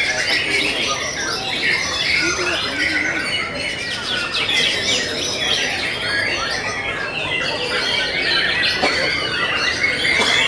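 Many caged white-rumped shamas (murai batu) singing at once, a dense, unbroken mix of overlapping whistles and fast chattering phrases.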